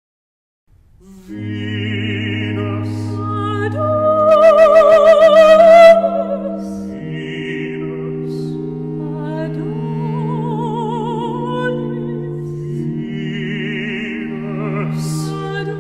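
Music with an operatic sound: long sustained chords with a wavering, vibrato melody line over them. It starts about a second in and is loudest around five seconds in.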